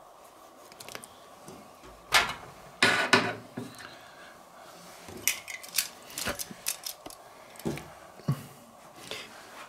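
Metal tongs clattering against a stainless-steel pan while lifting sausages out of the water: a series of sharp knocks and clinks, the loudest about two to three seconds in, then lighter ones further on.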